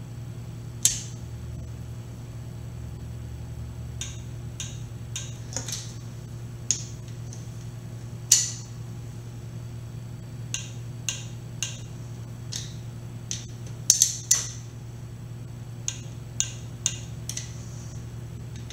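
Sharp, irregular metallic clicks of a wrench on the bolts as they are tightened to torque, some coming in quick pairs or clusters, over a steady low hum.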